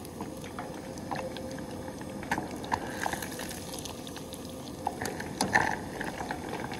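Hot oil bubbling and crackling steadily in a small saucepan as crushed-Takis-breaded fish nuggets deep-fry on a camp stove. Scattered pops and the clink of metal tongs against the pan come and go, loudest a little over five seconds in.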